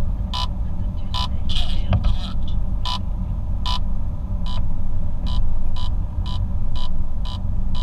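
Car driving at road speed, heard from inside the cabin: a steady low road and engine rumble. Over it a short, sharp tick repeats, irregular at first and then about two to three times a second from around five seconds in.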